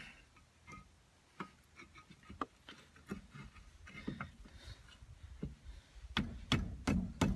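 Irregular light clicks and knocks of metal tools and brake parts being handled while the brake caliper is worked onto the rotor, growing louder and more frequent near the end.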